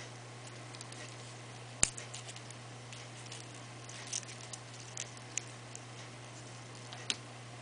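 Small crackles and clicks of stiff, ink-sprayed and scrunched paper being rolled up on a metal paper-rolling tool, with one sharper click about two seconds in. A steady low hum runs underneath.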